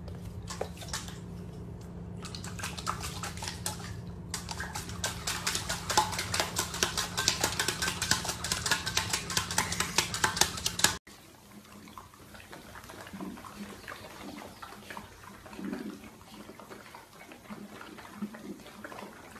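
Dogs splashing and lapping water from a stainless steel bowl, with rapid wet laps and metallic clinks that grow busier and louder until they stop abruptly. A much quieter stretch follows with faint low sounds from puppies wrestling.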